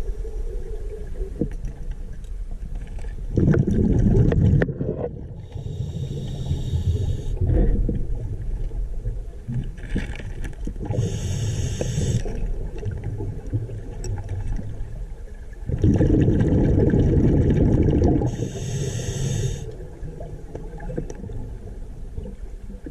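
Scuba regulator breathing heard underwater: three hissing inhalations through the demand valve alternate with bursts of exhaled bubbles.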